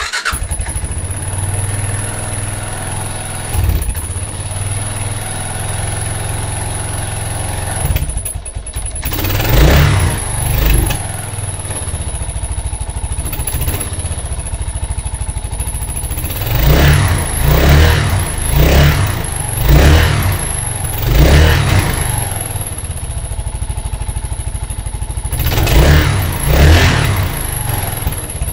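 2006 Kawasaki KLR650's single-cylinder four-stroke engine running cold just after a cold start, idling with a steady low beat. The throttle is blipped repeatedly: two revs around ten seconds in, a run of five more in the middle, and two near the end.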